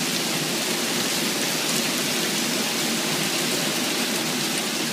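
Hail falling steadily and densely, hailstones striking the ground of a garden yard in an even, unbroken hiss.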